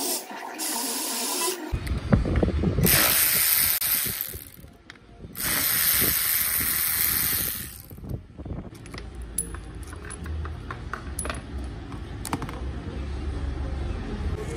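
Pressurised spray hissing in three long bursts at the hedge trimmer's engine and gearbox. After them come light clicks and knocks as parts of the trimmer are handled.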